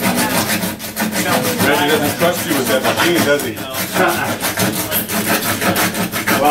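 Small hand saw cutting wood in a door opening, in repeated quick back-and-forth strokes.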